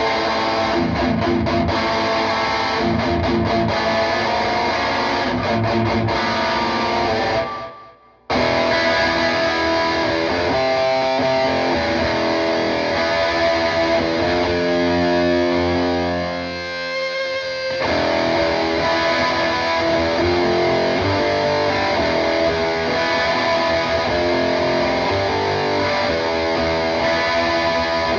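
Electric guitar, a PRS McCarty 594, played through a PRS Archon 50 amp head into a cabinet with V-30 speakers, with a distorted tone. About eight seconds in the playing dies away and cuts off abruptly, then starts again at once.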